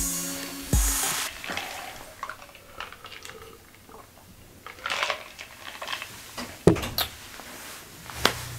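Background hip-hop music ends about a second in. A man then drinks from a mug, with sips, swallows and breaths, and there is a single thump near the end.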